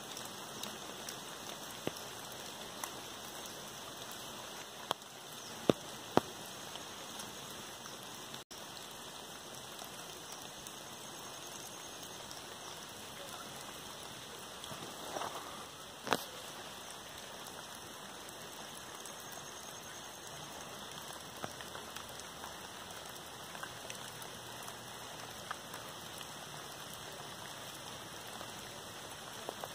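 Monsoon rain falling steadily on palms and dense foliage, an even hiss throughout. A few sharp taps stand out close by; the loudest comes about halfway through.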